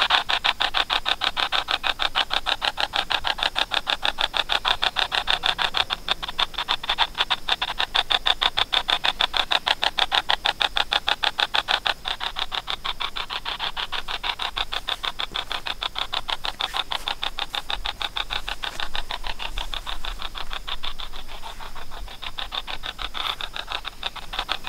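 Spirit box app on a smartphone sweeping, a rapid, regular chopping of static played through the phone's speaker; it gets a little softer about halfway through.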